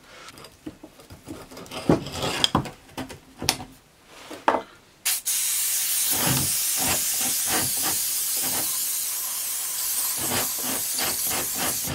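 A few knocks and clicks of metal being handled on the workbench, then, about five seconds in, a sudden long steady hiss from an aerosol can of WD-40 penetrating oil sprayed onto the rusted drill press chuck to loosen it.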